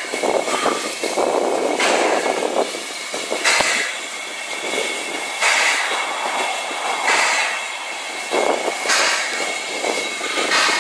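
Steam locomotive No 699, built by A & G Price in 1922, with steam up: a steady hiss broken by rhythmic hissing bursts about every one and a half to two seconds.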